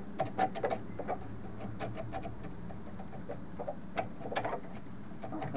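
Screwdriver scraping and picking carbon out of the cooling ports of a British Seagull two-stroke outboard's cast cylinder block: a run of short, irregular scratches and clicks.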